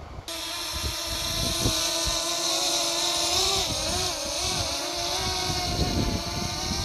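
DJI Mavic Mini quadcopter's motors and propellers buzzing in flight, a steady high whine that starts suddenly, with the pitch wavering around the middle as the motors change speed.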